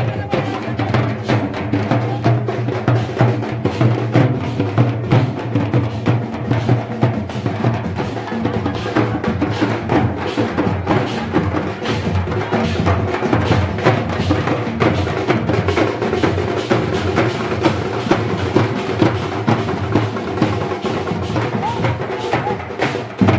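Several strap-hung drums with white heads, beaten with thin sticks, playing a fast, driving rhythm together, with many sharp strikes a second.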